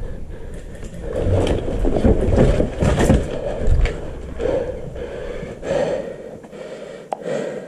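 Footsteps and rustling gear of a player on the move, with breathing heard at intervals.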